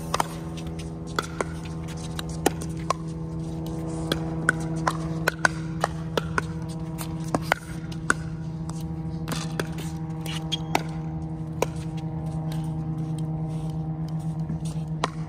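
Pickleball paddle striking balls and balls bouncing on the hard court: a dozen or more short sharp pops at irregular intervals. Under them runs a steady low hum that begins to waver near the end.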